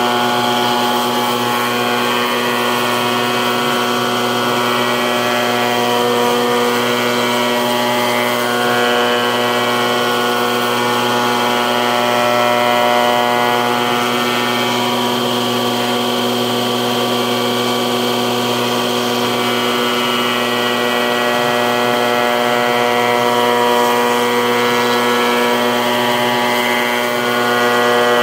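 Shop Fox molder running steadily while a curved round-casing blank is hand-fed through its cutterhead, milling the molding profile: a continuous machine drone with several held tones and no pauses.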